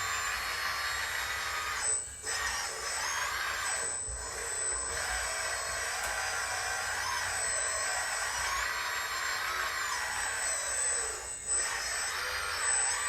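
Several radio-controlled construction models (excavators, dump trucks and a loader) running together, their small electric motors and gearboxes whining at many pitches that rise and fall as the machines move, dig and drive. The whine briefly dips a few times.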